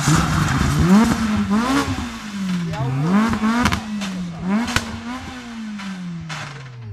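Rally car engine revving hard on a stage, its pitch climbing and dropping several times as the driver works the throttle and gears. A few sharp cracks come through the middle, and near the end the engine note falls away as the car moves off.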